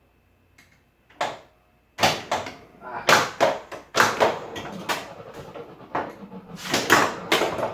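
Flash Gordon pinball machine in play: a single click, then from about two seconds in a quick, irregular run of loud, sharp clacks and knocks from the ball and the playfield mechanisms.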